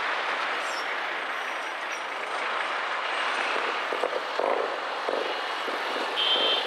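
Steady city traffic noise heard from a car slowing in traffic, with a brief high-pitched squeal near the end.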